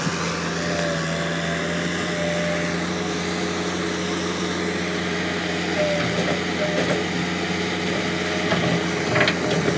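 A CAT 420E backhoe loader's diesel engine runs steadily, with a short louder sound just after nine seconds.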